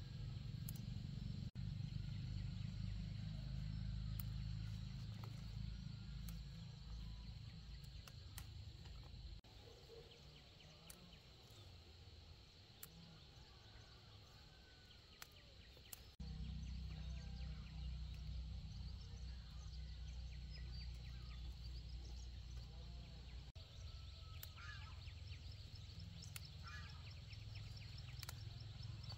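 Farm-field ambience with a steady, high insect drone and a few bird chirps near the end. Scattered small clicks and rustles come from chili plants being handled and stems snapped during hand picking, over a low hum that fades for several seconds in the middle.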